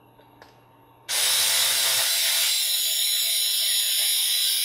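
Small cordless electric screwdriver running, driving a screw into a plastic RC portal axle housing. Its motor whine starts suddenly about a second in and then runs steadily.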